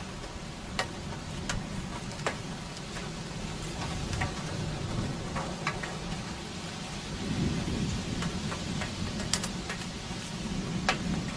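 Hail and rain falling: a steady hiss with scattered sharp ticks of hailstones striking hard surfaces, a few every couple of seconds.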